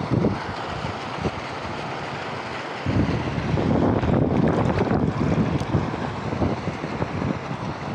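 Rushing, splashing water with wind buffeting the microphone; the sound drops back for a couple of seconds and grows louder again about three seconds in.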